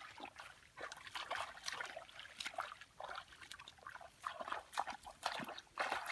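Shallow muddy water splashing and sloshing in irregular bursts as hands work through it to catch fish.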